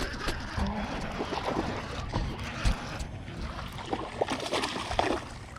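Scattered small knocks and clicks of handling on a fishing boat, over a steady background hiss.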